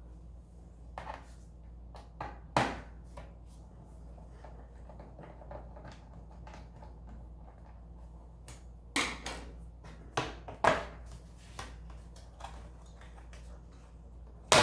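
Scattered clicks and knocks of a laptop's plastic case and tools being handled as it is opened back up, with a cluster of louder knocks about two thirds of the way through. A steady low hum runs underneath.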